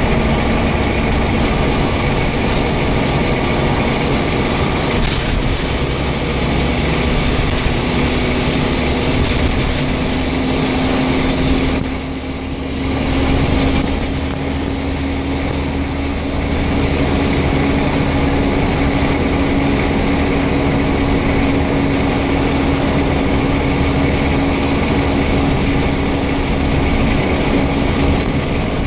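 Scania N94UD double-decker bus heard from inside the lower deck, its nine-litre five-cylinder diesel running as the bus drives. A steady whine rises slowly in pitch, and the sound dips briefly about twelve seconds in.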